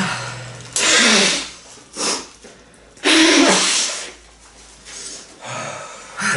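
A man blowing his nose hard into a tissue: two loud, noisy blasts about a second and three seconds in, with a shorter one between them.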